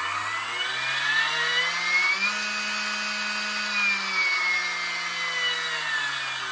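Proxxon MF70 micro mill spindle driven by a brushless inrunner motor, running free while its speed is turned up over about two seconds, held, then turned back down: a motor whine that rises, holds steady and falls. The new motor is much less noisy across the whole speed range.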